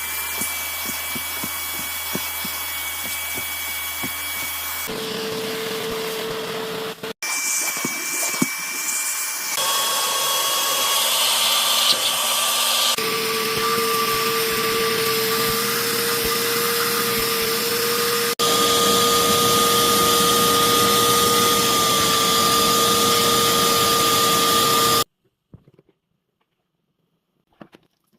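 Bissell vacuum cleaner's motor running with a steady whine, in a string of short clips where the pitch of the whine jumps from one clip to the next. It is loudest in the last stretch and cuts off suddenly near the end, leaving near silence.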